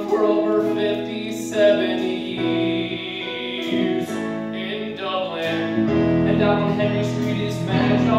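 Live band music: a keyboard plays sustained chords over light drums, accompanying a show tune.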